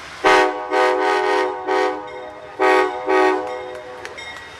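Amtrak P42DC locomotive's multi-chime air horn sounding a quick series of short blasts, with a brief pause about halfway, as the train pulls out of the station.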